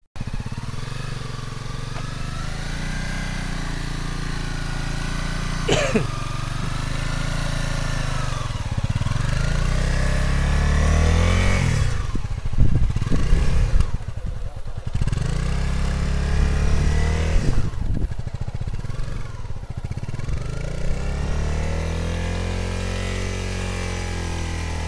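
A small sport motorcycle's engine runs at low speed through slow turns, its pitch rising and falling as the throttle opens and closes. It gets louder when the bike passes close to the microphone, about halfway through and again a few seconds later.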